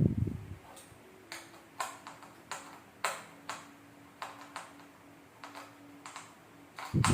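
A series of light, sharp clicks and taps at irregular intervals, roughly one every half second, over a faint steady hum.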